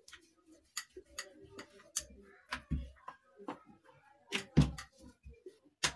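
Rolling pin clicking and knocking on a marble rolling board as dough is rolled out into a roti: irregular sharp clicks with a few dull thumps, the loudest a little over four and a half seconds in and near the end.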